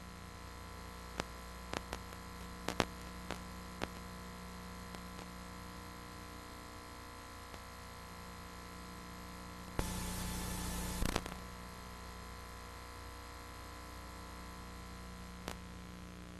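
Steady mains hum with faint hiss from the blank audio of a VHS tape playing back. A handful of sharp clicks come in the first four seconds, and a burst of static about ten seconds in lasts just over a second.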